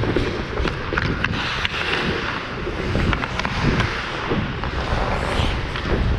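Ice hockey skates carving and scraping on the ice, with scattered sharp clicks of sticks and puck, over a steady low rumble of movement on a player-worn GoPro.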